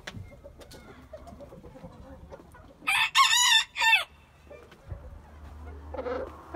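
A rooster crows once about three seconds in: a loud, high crow a little over a second long, broken into three parts. Softer clucking from caged chickens comes before and after it.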